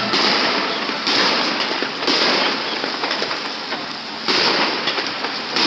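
Fireworks going off in a dense, continuous crackle of many small bangs, with a sudden jump in loudness about four seconds in.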